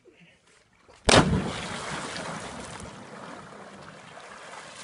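A person jumping off a cliff into deep water: one loud splash about a second in, then churning water that slowly dies away.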